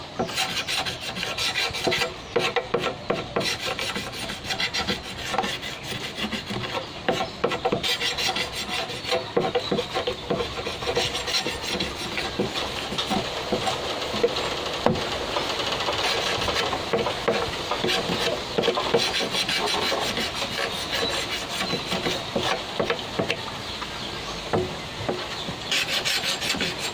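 Machete blade scraping the green outer skin off a bamboo culm in quick, repeated strokes, a continuous scraping of steel on hard bamboo that goes on without a break.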